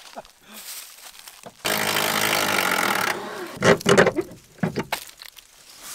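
Cordless impact wrench hammering a fastener loose on a junkyard Honda Civic's rear wheel: one steady buzzing run of about a second and a half, starting near two seconds in.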